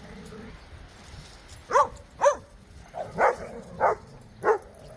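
A dog barking in play: five short, sharp barks about half a second apart, starting nearly two seconds in.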